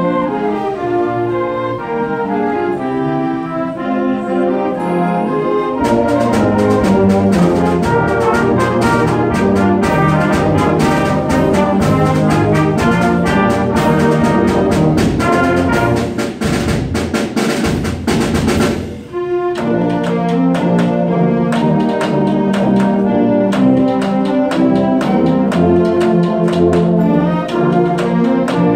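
School wind ensemble playing a concert piece: trumpets, trombones and woodwinds over timpani and bass drum, with dense drum strikes through the middle and a brief drop about two-thirds of the way through before the band plays on.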